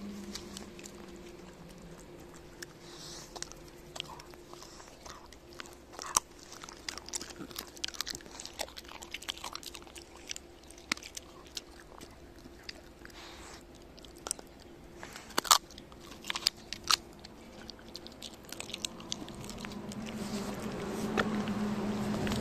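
Shiba Inu crunching and gnawing on boiled chicken carcass bones: irregular sharp cracks of bone, the loudest about fifteen seconds in. A low steady hum underneath grows louder near the end.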